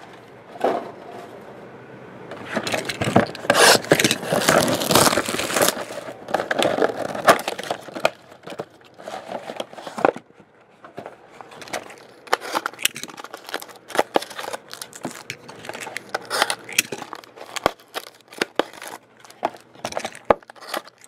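Foil-wrapped trading card packs being handled close to the microphone: a few seconds of crinkling and scraping, then a run of short taps and scrapes as packs are picked up, felt for thickness and set down.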